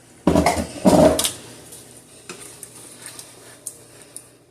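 A metal spoon scraping and stirring in a pot of thick tomato pasta sauce, with two loud scrapes in the first second and a half, then a few light taps.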